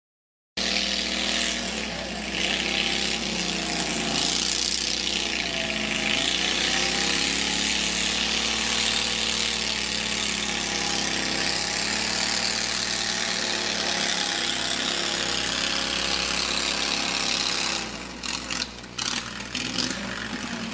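Modified garden tractor's engine running hard and steady under load as it pulls a sled, its pitch dipping and rising a few seconds in. About eighteen seconds in it drops back and runs unevenly as the pull ends.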